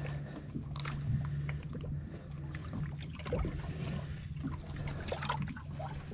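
A boat's engine hums steadily at idle while water trickles and sloshes, with scattered light knocks and clicks.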